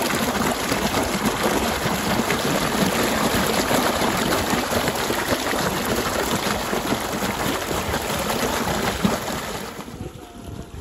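Irrigation water gushing up out of an underground outlet into standing water: a steady, rushing splash that drops away about ten seconds in.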